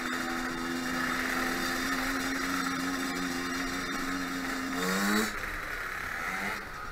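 Small two-stroke dirt-bike engine running at steady low revs while riding slowly, then revving up briefly about five seconds in before the revs drop back.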